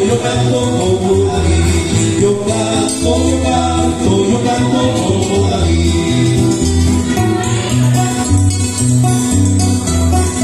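A man singing a Spanish-language Christian song over acoustic guitar, with a steady bass line of held low notes changing about once a second.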